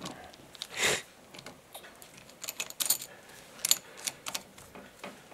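Irregular light metallic clinks and clicks as steel bearing-puller legs are fitted around the carrier bearing of a differential carrier by hand.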